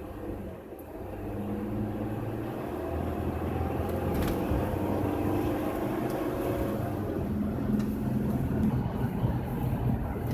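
Car engine and tyre noise heard from inside the cabin, growing louder over the first few seconds as the car speeds up, then running steadily at road speed.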